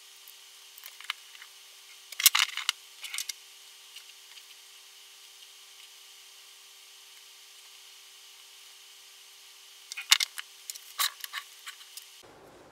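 Light clicks and knocks of a small circuit board and its parts being handled and set against a wooden workbench, in two short clusters: about two seconds in and again about ten seconds in. Between them there is only faint steady background noise.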